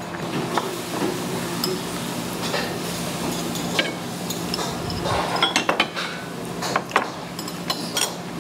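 Metal chopsticks and a metal spoon clinking against bowls, plates and a stew pot, scattered single clicks with a quick run of them in the second half, over a steady low hum.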